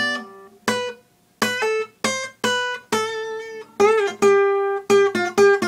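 Acoustic guitar playing a single-note lead line: about a dozen notes plucked one at a time, each ringing briefly, with one note wavering in pitch about four seconds in.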